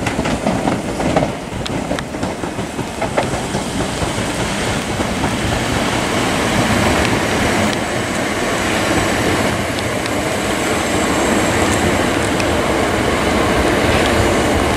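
A long Class 465/466 Networker electric multiple unit running over pointwork, its wheels clicking over rail joints in the first few seconds. The running noise grows gradually louder toward the end.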